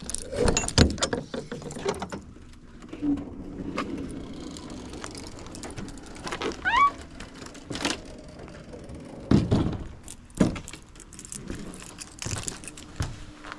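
An enclosed trailer's rear ramp door being unlocked and lowered on its cable: keys jangling, metal latch clunks, and several knocks and thuds, with a short rising squeak midway.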